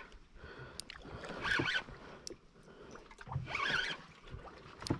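Water sloshing against a small boat's hull in two gentle surges, with a few sharp clicks in between.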